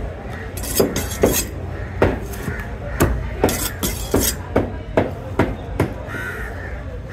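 Knife chopping fish on a cutting block in quick, uneven strokes, about two a second. A crow caws in the background about six seconds in.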